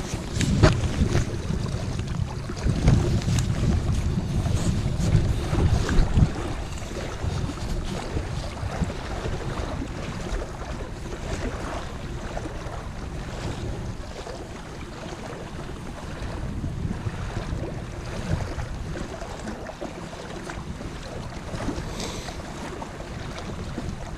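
Wind buffeting the microphone as a low rumble, with small waves lapping on a rocky bank. The gusts are heaviest for the first six seconds or so, then ease.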